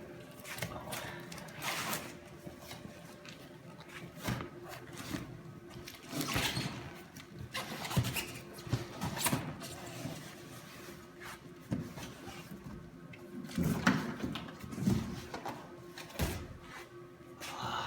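Packaging being handled and opened: a series of scattered knocks, scrapes and rubbing noises.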